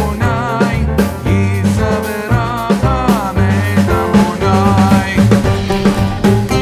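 Background music with a drum beat, a bass line and a wavering melodic or vocal line.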